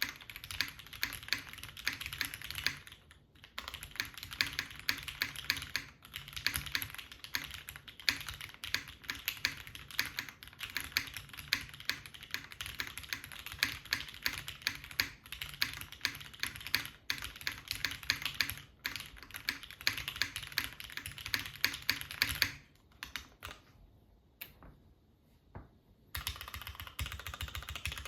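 Typing on an Axiom Studios Typ65+ mechanical keyboard, top-mounted with a carbon-fibre half plate, fitted with broken-in Cherry MX Black linear switches and JTK keycaps: a steady run of keystrokes. There is a brief pause about three seconds in and a longer lull near the end.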